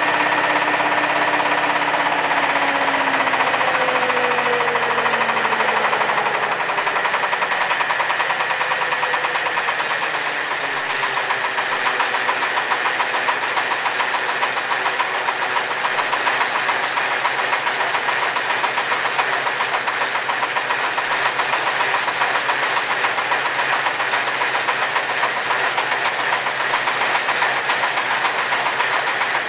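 Small flat-die pellet mill and its drive engine running under load as ground bark is fed in, a steady mechanical drone with a rapid, even beat. The pitch sags over the first few seconds as the feed goes in, then holds steady.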